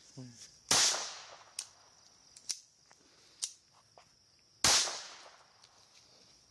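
Two handgun shots about four seconds apart, each a sharp crack with a short echoing tail, with a few faint clicks between them.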